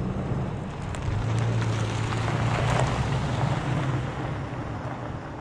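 Toyota Tacoma pickup truck driving on a gravel road: engine hum with tyre noise on the gravel, growing louder about a second in and fading toward the end as the truck moves off.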